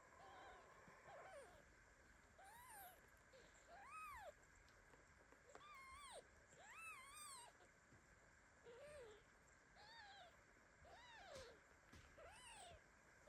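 Newborn kitten mewing over and over: about nine short, thin, high-pitched mews, each rising and falling, roughly one a second, faint.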